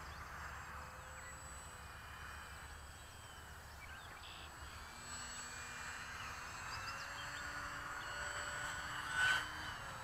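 Faint, distant whine of the E-flite UMX Pitts's small electric motor turning a GWS 5043 propeller in flight at about half throttle, its pitch sliding and rising over the second half, with a few faint bird chirps and a brief louder sound about nine seconds in.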